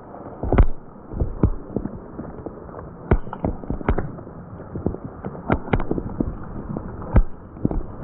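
Steady rush of a stream and waterfall, with irregular sharp knocks and thumps, several in quick succession at times.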